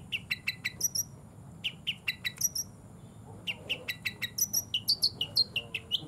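Caged long-tailed shrike (cendet) singing: quick runs of short, sharp, downward-slurred chirps, with a short pause a little before the middle.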